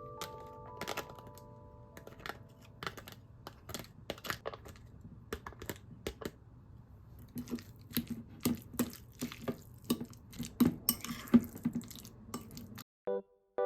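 Kitchen handling sounds: a string of light clicks and clinks of dishes and utensils, sparse at first and busier and louder in the second half, ending abruptly. A few held music notes fade out at the very start.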